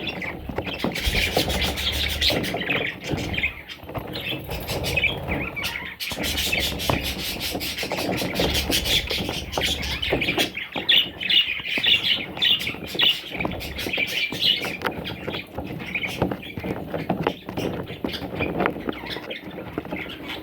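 Budgerigars chirping and chattering without a break, many quick overlapping calls.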